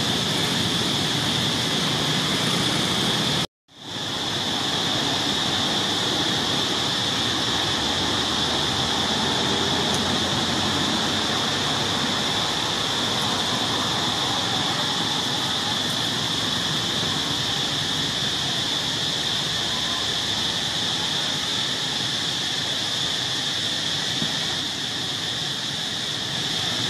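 Steady, shrill insect chorus, a continuous high-pitched drone held at one pitch, under a general hiss of outdoor ambience. It cuts out for a moment about three and a half seconds in, then resumes unchanged.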